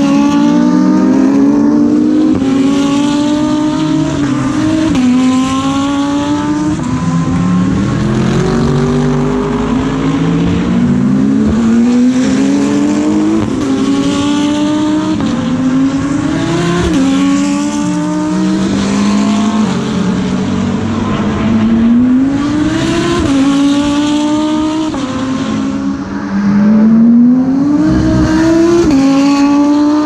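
GT3 race cars accelerating along the circuit, engines climbing in pitch and dropping sharply at each upshift, one shift after another, with more than one car heard at once. The sound swells near the end as a car comes closer.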